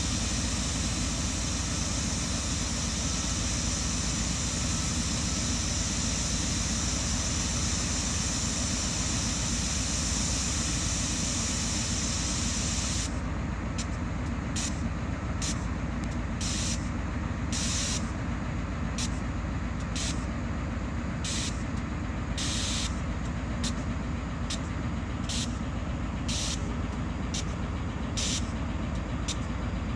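GE B23-7 diesel-electric locomotive's 12-cylinder engine running as the locomotive rolls slowly past: a steady low rumble with a hiss over it. About halfway through, the hiss starts cutting in and out.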